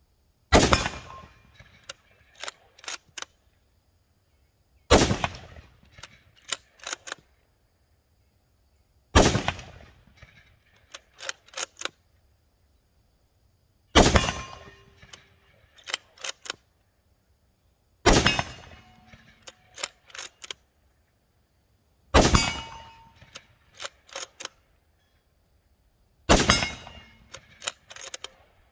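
Ruger Precision Rifle in 6mm Creedmoor fired seven times, a shot about every four seconds, each one ringing off briefly. Between shots the bolt is worked, a quick run of three or four sharp metallic clicks.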